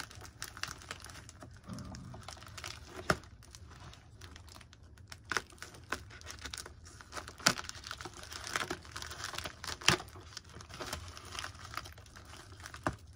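Plastic postal mailer bag crinkling and tearing as it is cut and pulled open by hand with a hobby knife, with irregular crackles and a few sharp snaps.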